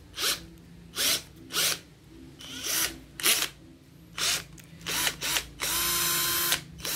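J.C.K Kawasaki 21V cordless drill given about eight short trigger pulses, each a brief rising whir, while its keyless chuck is held by hand to tighten the bit. Near the end it runs steadily for about a second.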